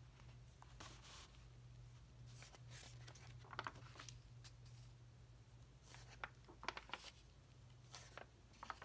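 Faint rustling and soft flicks of paper pages being turned by hand in a paperback book, a few scattered handling sounds over a low steady hum.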